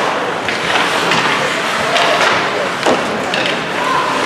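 Ice hockey play: skate blades scraping and carving the ice, with sticks and the puck clacking in several sharp knocks.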